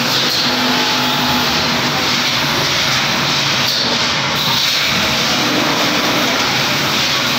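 Peanut air blancher running: a loud, steady rush of blower air and machinery noise, with a faint hum that comes and goes underneath.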